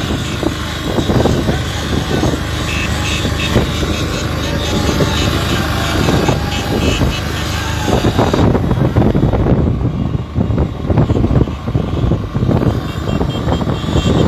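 Wind buffeting the microphone on a moving open vehicle, over the drone of the engines of a large convoy of motorcycles. About two-thirds of the way through, the high hiss thins, leaving low, gusty rumbling.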